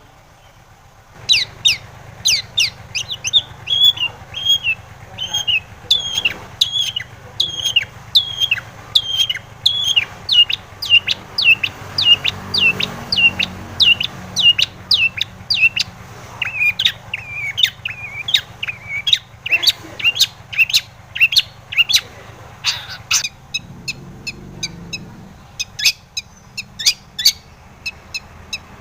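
Long-tailed shrike (cendet) singing: a long, fast run of sharp, downward-sliding chirps, about two to three a second, starting about a second in, with a brief lull near the end.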